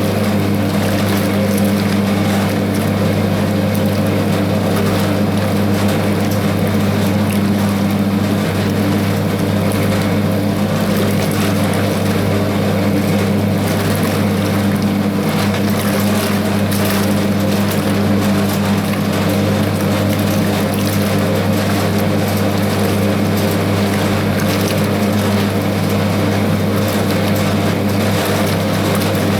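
Hoover 0321 wringer washing machine running during its wash: a steady electric-motor hum with a noisy churn over it, unchanging throughout.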